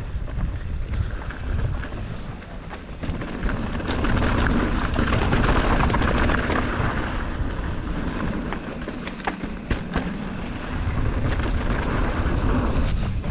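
Mountain bike riding a bike-park trail, heard from a rider-mounted camera: wind rushing over the microphone and tyres rolling, with frequent knocks and rattles from the bike over bumps. It gets louder from about four seconds in, as the bike speeds up.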